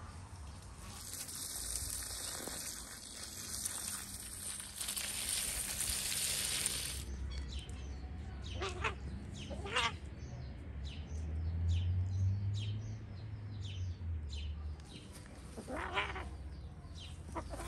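Farm animals bleating several times in short calls, with a steady hiss over the first few seconds.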